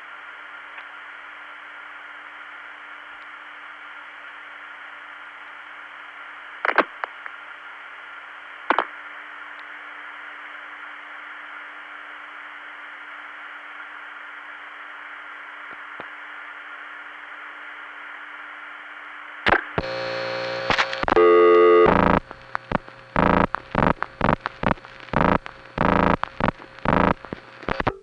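Telephone line from a 1976 long-distance call: steady line hiss with a low hum, and two clicks about two seconds apart. About twenty seconds in, loud tones break in, then a quick run of short tone bursts of telephone dialing signals.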